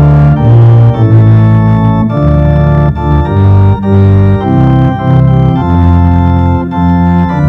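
Organ playing slow sustained chords over a strong bass line, the chords changing about every second.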